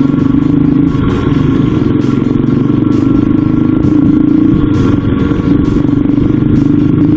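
Raptor 87 pocket bike's small stock engine running under way at a fairly steady pitch.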